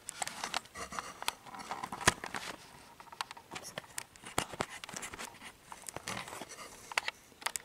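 Handling noise: scattered light clicks, taps and rustling as the camera is moved and the RC truck chassis is handled, with a few sharper clicks among them.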